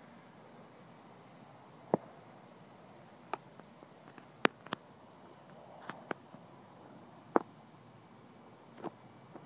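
Steady faint high buzz of insects, with about eight sharp clicks at irregular intervals a second or so apart.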